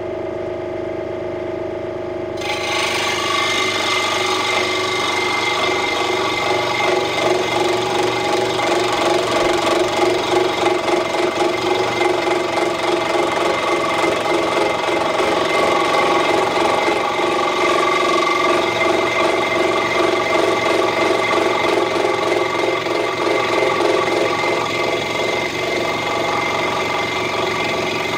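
Central Machinery 16-inch scroll saw running, its reciprocating blade biting into a 2x4, taken for Douglas fir, about two seconds in and then sawing steadily along a curve.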